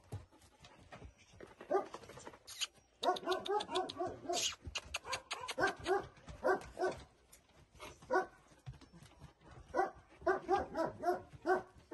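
A dog barking repeatedly in runs of short barks, a few a second, starting about three seconds in.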